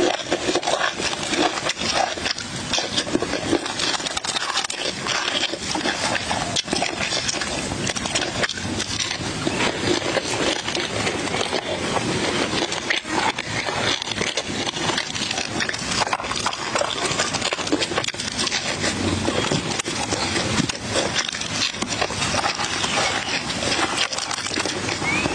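Close-miked eating: steady chewing and lip smacking, a dense run of small crackling clicks, with fingers picking apart charcoal-grilled fish.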